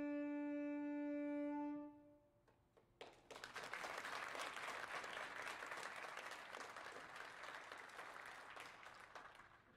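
A saxophone holds a final sustained note that fades out about two seconds in. After a short pause, an audience breaks into applause that fades near the end.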